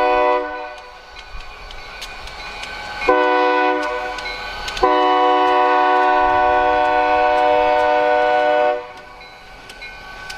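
Freight locomotive's air horn sounding for a grade crossing, several notes together as one chord. A blast ends just after the start, a short blast comes about three seconds in, and a long blast of about four seconds follows: the close of the long-long-short-long crossing signal.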